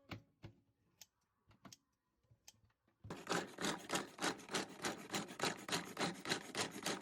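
Kitchen food preparation: a few scattered clicks, then from about three seconds in a fast, even run of scraping strokes, about four a second.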